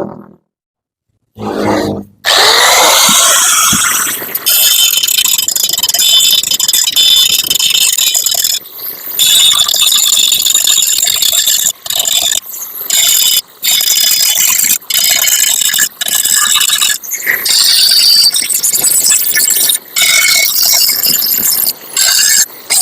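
Electric power tool working the metal of a motorcycle exhaust: a loud, high whine that stops and restarts many times in runs of one to a few seconds, after a short silence at the start.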